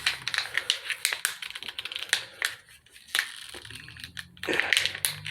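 Flashlight packaging being handled and torn open by hand: a rapid run of sharp clicks and crinkles, then a single louder snap and a brief rustle near the end.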